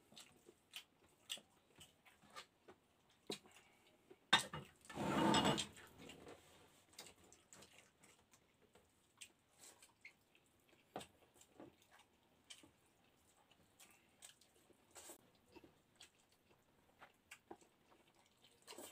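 Close-miked eating: wet lip smacks and chewing clicks, scattered and irregular, as a man eats rice and noodles by hand. About four seconds in comes one louder noisy sound lasting about a second and a half.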